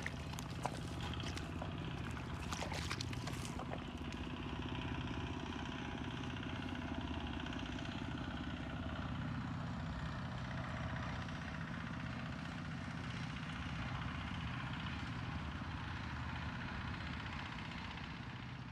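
A steady low drone like an engine running in the distance. In the first few seconds, bare feet splash and squelch in shallow muddy water.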